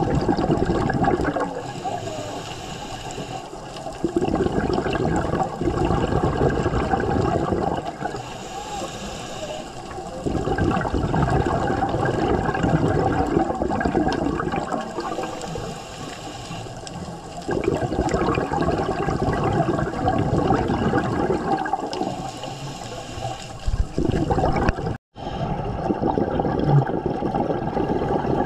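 Scuba regulator breathing heard underwater: a rush of exhaled bubbles every five or six seconds, each lasting three to four seconds, with a quieter hiss of inhalation between.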